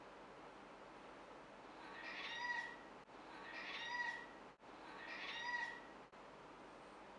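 Ragdoll cat meowing three times, about a second and a half apart, each meow swelling in loudness and then stopping: complaining meows aimed at its owner.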